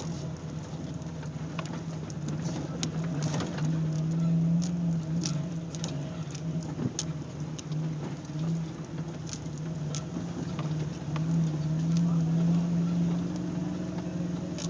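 Off-road vehicle engine running with a steady drone that swells and eases, with scattered sharp ticks and patter over it.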